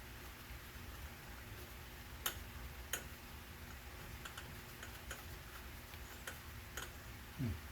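A few light, irregular clicks and taps of small hard parts being handled while a rear-view camera mount is positioned, over a low steady hum. A brief falling murmur of a voice comes near the end.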